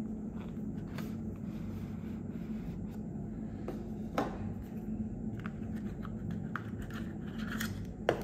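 Light clicks, taps and scrapes of a product box and its packaging being handled during unboxing, with a sharper click about four seconds in, over a steady low hum.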